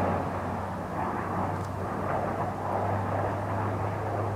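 Alenia C-27J Spartan in flight, its twin Rolls-Royce AE 2100 turboprops and propellers running as a steady low drone with a rushing noise above it, the hum growing a little stronger near the end.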